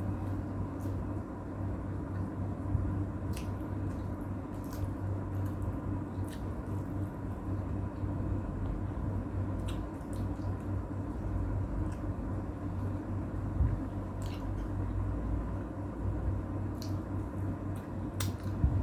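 Eating sounds: a person chewing, with about seven short, sharp clicks and wet mouth sounds scattered through, over a steady low hum.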